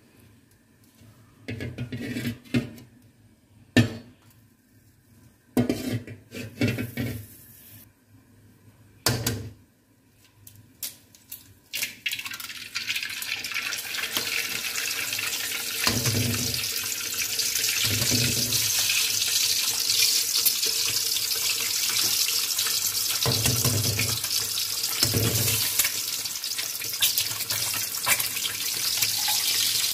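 Eggs frying in hot oil in a kadai: a steady, loud sizzle starts about twelve seconds in as the first egg hits the oil and keeps on. Before it, and a few times during it, there are knocks of eggs being cracked against the pan.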